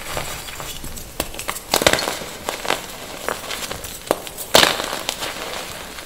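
Blocks of gym chalk crushed and crumbled between bare hands: irregular dry crackles and crunches, loudest about two seconds in and again past four and a half seconds, with an echo on the recording.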